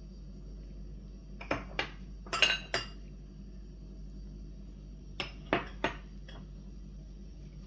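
Kitchen dishes and utensils clinking: a quick run of knocks and clinks about a second and a half in, and another short run about five seconds in.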